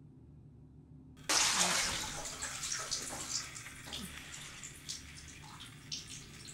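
A sudden loud splash of bathwater about a second in, then water trickling and dripping back into the tub as it dies away. A low hum comes before the splash.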